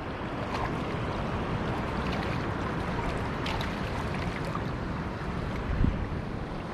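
Shallow sea water washing and wind buffeting the microphone as a steady rushing noise, with a short low thump about six seconds in.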